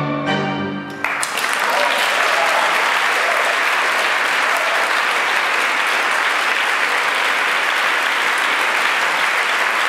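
A held final chord of music stops about a second in, and an audience breaks straight into steady applause.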